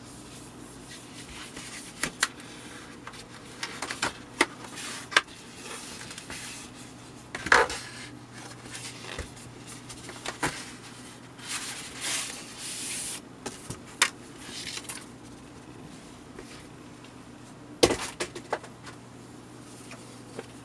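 Cardboard packaging handled by gloved hands: scattered taps and knocks, with short stretches of rustling and scraping as the box is opened and its contents slid out. The loudest knocks come about seven and a half seconds in and again near the end, over a faint steady hum.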